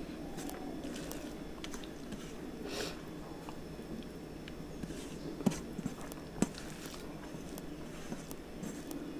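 Close-up eating sounds: chewing, and fingers mixing rice on a steel plate. A few sharp ticks stand out about halfway through.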